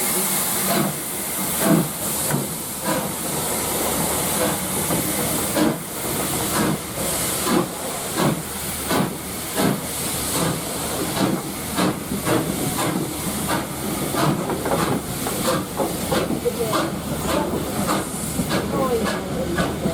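Steam locomotive working under a steady hiss of steam, its exhaust beats coming at first about one a second and quickening to about two a second.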